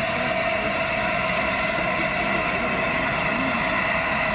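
A locomotive standing with a steady, unchanging hiss and hum.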